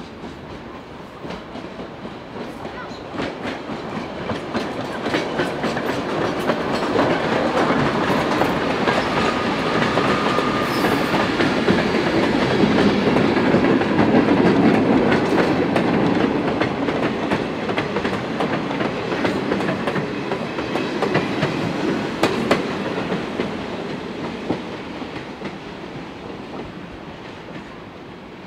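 A train passing by, its wheels clicking over the rail joints. The sound builds to its loudest about halfway through, then fades away as the train recedes.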